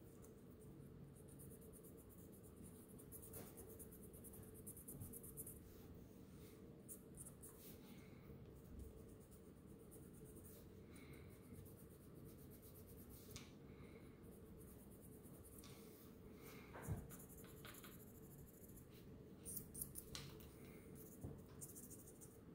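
Faint scratching of sandpaper rubbed by hand over a small silver watch case in short, uneven strokes, sanding it to a satin finish. A single sharp knock about three-quarters of the way through.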